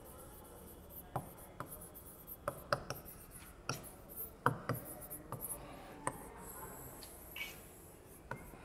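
Someone writing by hand: a run of short taps and scratchy strokes, a few clicks standing out, between which it stays faint.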